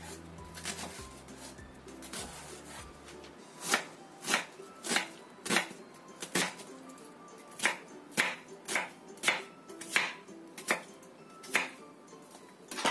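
Chef's knife chopping an onion on a wooden cutting board: about a dozen sharp, irregular knocks of the blade hitting the board, starting about four seconds in, roughly one or two a second.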